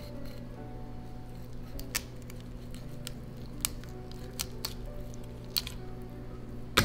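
Kitchen knife cutting a fillet off the backbone of a largescale blackfish (mejina): quiet slicing with scattered sharp clicks as the blade works over the bones, the loudest click near the end.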